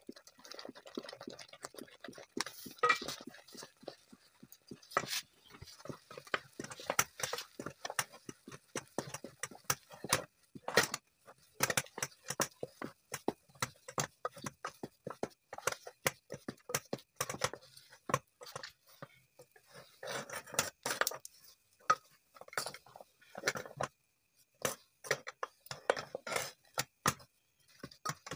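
A wooden spatula stirring and scraping maize flour and water in a metal pot, with quick irregular scrapes and knocks against the pot as the mixture thickens into fufu dough.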